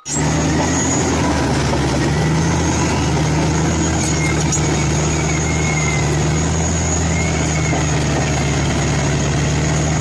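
Large Caterpillar crawler bulldozer's diesel engine running steadily under load as it pushes earth with its blade, with faint high squeals at times.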